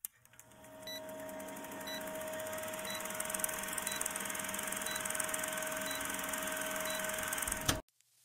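Old-film countdown sound effect: a film projector's steady whirr and hiss with a hum tone, faint ticks about once a second, a click at the start and a short pop just before it cuts off near the end.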